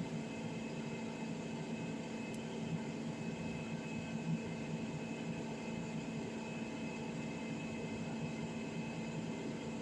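Steady background hum and hiss with a few constant tones, like a running fan or appliance in the room, and faint small handling sounds.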